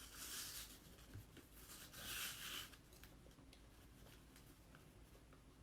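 Soft rubbing of a hand smoothing a silk-screen transfer flat to press out air bubbles: two quiet swishes, one in the first second and one about two seconds in, then only faint scratching.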